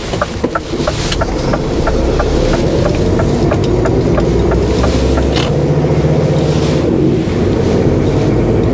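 HGV truck's diesel engine running under way, heard from inside the cab, its note rising from about two seconds in and then levelling off. A fast, even ticking runs through the first few seconds.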